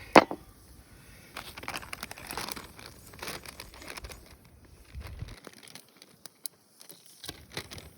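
Crinkling and rustling of food packaging being handled, in many short scattered strokes, with one sharp knock just after the start.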